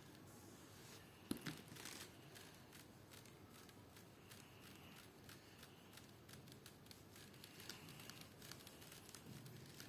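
Faint scratching of a colouring stick rubbed back and forth on paper, with a sharper tap about a second in.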